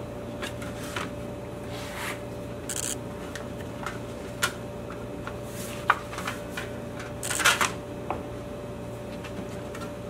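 Spring clamps being snapped onto the edges of a stack of thin steel sheets on a wooden workbench, with handling of the sheet metal: scattered clicks and knocks, and a louder scraping rustle about seven seconds in.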